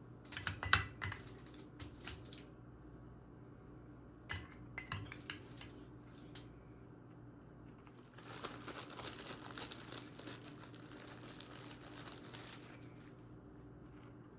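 Dishes and utensils clinking and clattering in two short bursts, then about four seconds of crinkling and rustling.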